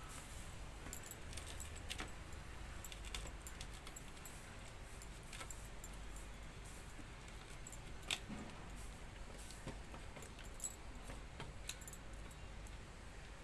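Eating by hand from steel dishes: scattered light clicks and metallic clinks as fingers pick food from a steel plate, with one sharper clink about eight seconds in.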